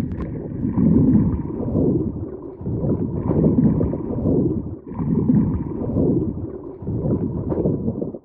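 Muffled underwater water noise through an action camera's waterproof housing: a low rumble of moving water that swells and fades about every second or so as a swimmer moves along the anchor chain.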